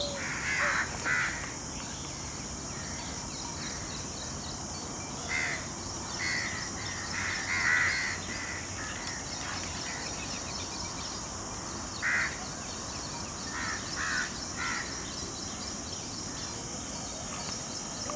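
Harsh cawing bird calls in several short groups of two or three, over a steady high hiss.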